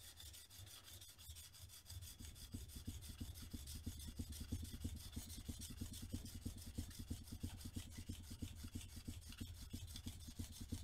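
Steel plane blade scraped back and forth on a wet diamond sharpening plate in quick, even strokes, as the back of the blade is flattened near its cutting edge.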